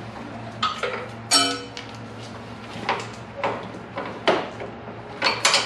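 Hydraulic quick-connect couplers on a John Deere 2025R being popped off the distribution manifold, with pressure relieved beforehand: a run of sharp metallic clicks and clinks. One clink about a second and a half in rings briefly.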